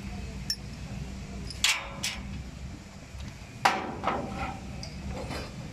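A handful of sharp, irregular knocks and clinks from tools being handled or struck in the workshop, the loudest about three and a half seconds in. A steady low hum runs underneath.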